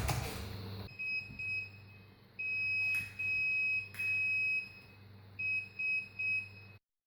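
Small electronic buzzer driven by an Arduino, sounding Morse code SOS in a steady high-pitched beep: three short beeps, three long beeps, three short beeps.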